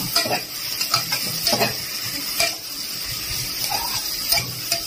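A spoon stirring chicken pieces in an aluminium pressure cooker, with a few irregular scrapes and clinks against the pot.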